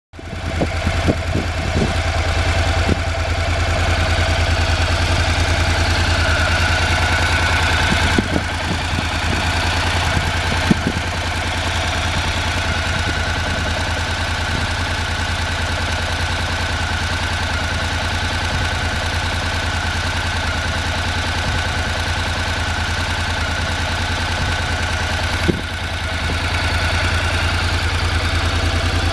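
2017 Honda NC750X's parallel-twin engine idling steadily, with a few brief knocks along the way.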